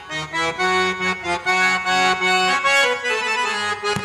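Harmonium playing a melody of short held notes, without voice or drums.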